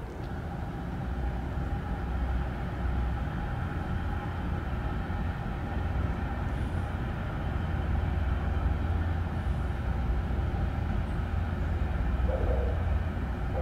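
Low, steady engine rumble with a faint hum above it, growing a little louder over the first few seconds and then holding.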